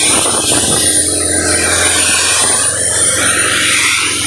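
Kaeser Mobilair M57 portable diesel screw air compressor running steadily under load while supplying air to the hose: an even engine drone with a hiss over it.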